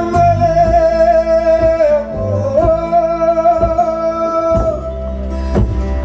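Live band music: strummed acoustic guitar over a steady bass and percussion, with a long held wordless vocal note that wavers and dips about two seconds in before settling again.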